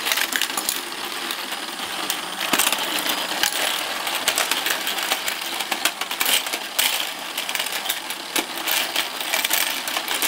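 Goldfish-scooping toy in play: small plastic fish and the scoop clicking and clattering continuously, many light ticks each second.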